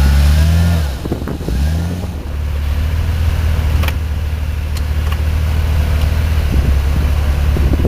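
2001 Jeep Grand Cherokee's engine revving up twice in the first two seconds, then running steadily at a low pitch. A few sharp knocks come about four and five seconds in.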